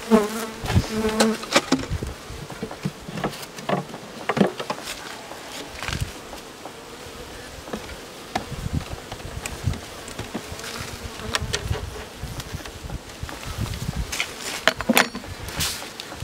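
Honeybee colony buzzing from an opened winter hive, a steady hum that swells near the start and again about two-thirds through. Through it come repeated knocks and clacks of wooden hive parts being handled: a division board and a wooden rim being set onto the hive.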